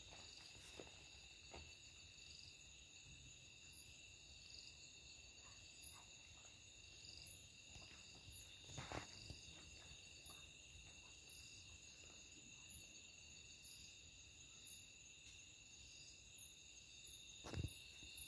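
Faint night insect chorus: several insects trilling steadily at high pitches, with a fainter chirp repeating about once a second above them. A few soft knocks and thumps break in, one about halfway through and a louder one near the end.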